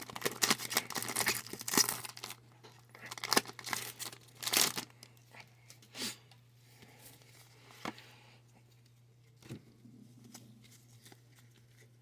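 Foil Pokémon booster pack wrapper being torn open and crinkled by hand, then a few soft clicks and rustles as the cards are handled. A steady low hum runs underneath.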